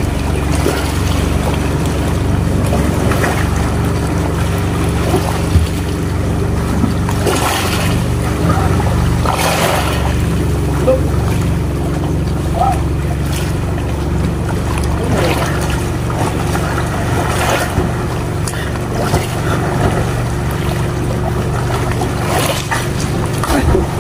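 Engine of a motorized bangka (outrigger boat) running steadily underway, a constant low drone, with brief rushes of water and wind noise now and then.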